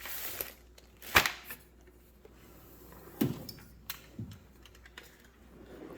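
Small metal tool parts clicking and clattering as a toolbox drawer is rummaged through, with a sharp clack about a second in and a few softer knocks later.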